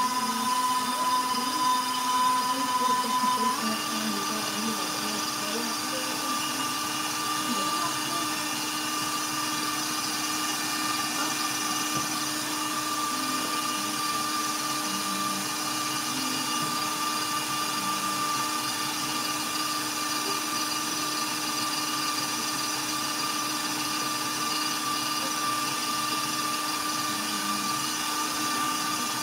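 Electric stand mixer running steadily, its flat beater churning thick chocolate buttercream in a steel bowl. The motor's whine steps up in pitch about three and a half seconds in and then holds steady.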